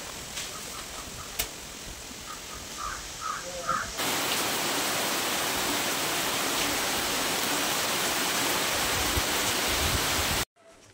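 Heavy rainstorm: a steady, dense rush of rain pouring on trees, starting abruptly about four seconds in. Before that, lighter rain noise, with a bird calling several times in a quick run. The sound cuts off suddenly near the end.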